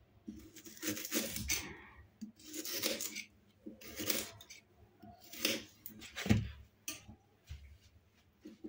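A kitchen knife slicing through a fresh, unpeeled ginger root on a countertop. There are about six separate cuts at uneven intervals, each short and sharp.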